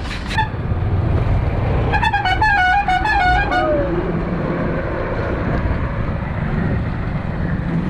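A vehicle's musical horn plays a short stepped tune of quick notes for about a second and a half, ending on a falling note, over steady road and traffic rumble.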